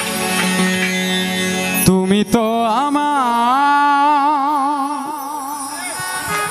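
Baul folk song: steady instrumental backing with a low drone, then a few microphone bumps about two seconds in as the singer raises the mic. A male voice then enters on one long wordless held note that slides up and wavers with wide vibrato for several seconds.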